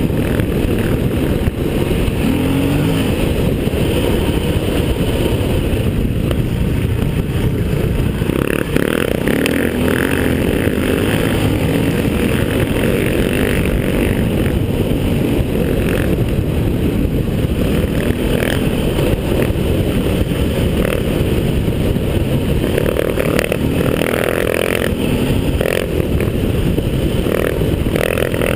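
Single-cylinder four-stroke enduro motorcycle running hard on a dirt track, heard from on the bike, with heavy wind rush on the microphone. The engine note rises and falls with the throttle, and there are scattered knocks from the rough surface.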